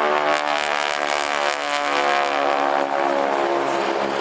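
Radial engines of two Boeing Stearman biplanes (Pratt & Whitney Wasp Junior) droning past together in a low formation pass; the engine note drops in pitch as they go by.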